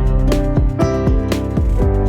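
Background music: a song with guitar and a steady beat, without vocals here.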